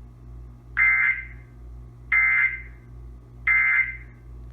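Emergency Alert System end-of-message data bursts: three short, identical digital screeches about 1.3 s apart, coming from a TV's speaker. They mark the end of the alert.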